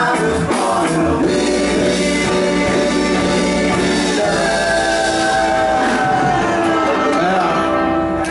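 Live reggae vocal group singing in harmony with a band behind them. The bass thins out about a second in, and the voices hold long notes for most of the rest.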